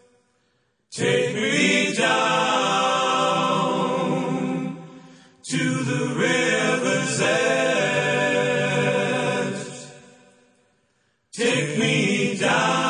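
A song with singing that fades out and starts again abruptly three times: a brief silence about a second in, a short dip about five seconds in, and a longer fade into silence before it starts once more near the end.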